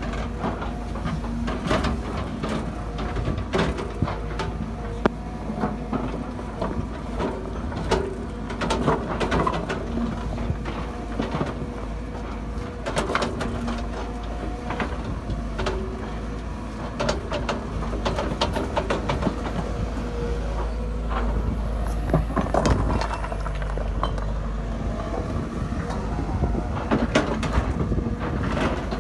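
Sumitomo excavator's diesel engine running steadily while its bucket digs through stony ground, with frequent irregular clacks and knocks of rocks striking the steel bucket and each other.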